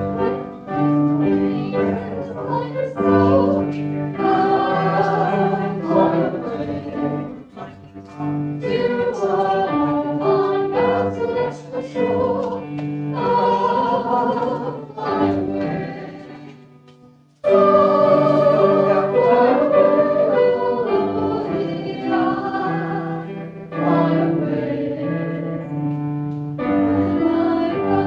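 Choir singing a gospel-style Christian song. About two-thirds of the way through, the music fades down and then a new passage starts abruptly at full strength.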